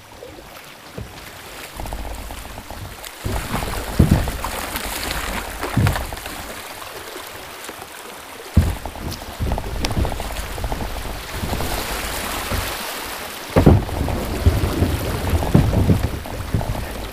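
Kayak paddle strokes splashing through water rushing over a shallow riffle, with a steady low rumble and several sharp knocks.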